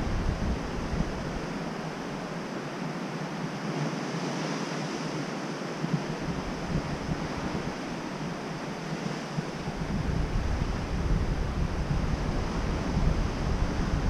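Ocean surf washing onto a sandy beach and reef, a steady hiss, with wind on the microphone adding a low rumble. The rumble drops away about a second and a half in and returns near the end.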